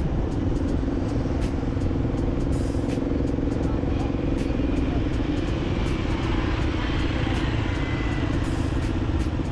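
Steady drone of a vehicle's engine and road noise heard while driving, with a constant low hum and faint, frequent high clicks.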